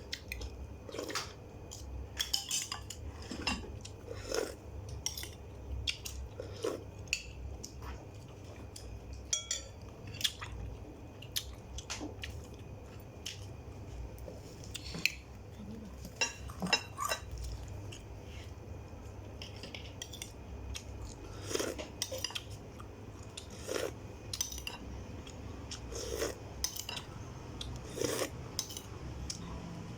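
Cutlery clinking and tapping against a plate or bowl during a meal: irregular light clicks, a few every couple of seconds, over a steady low hum.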